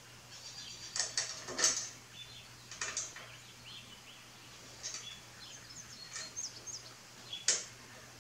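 Scattered light clicks and scrapes of a steel grille guard bracket and its bolts being handled and lined up by hand, a handful of separate knocks with short gaps between them.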